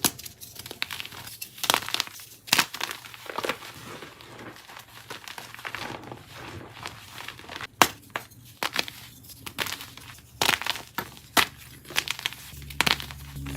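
Gym chalk blocks being crushed and crumbled close to the microphone: a run of irregular, crisp crackles and snaps. A low steady hum comes in near the end.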